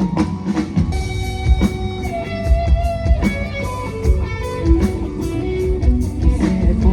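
Live band playing an instrumental interlude of a Bollywood ballad: a guitar carries a slow, bending melody over a steady drum-kit beat, with no singing.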